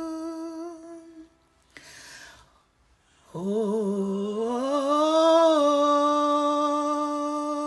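A woman's voice singing a worship song: a long held note that fades out about a second in, a short breath, then a hummed note that slides up and settles into a long steady tone.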